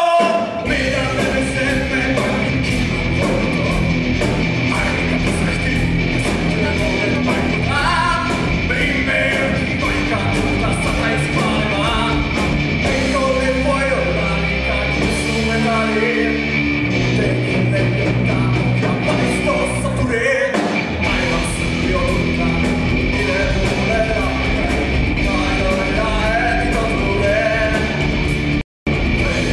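Live rock band playing: electric guitars, bass guitar and drums with a steady beat, and a singer's voice over them. The sound cuts out completely for a moment near the end.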